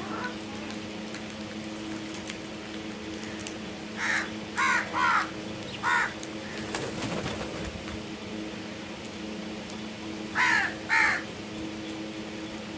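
Crow cawing: four harsh caws in quick succession, then two more after a pause of about four seconds, over a steady background hum.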